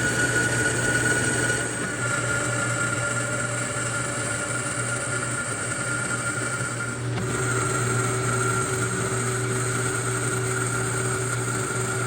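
A metalworking machine tool running steadily, with a constant high whine over a low motor hum. The tone changes abruptly about two seconds in and again about seven seconds in.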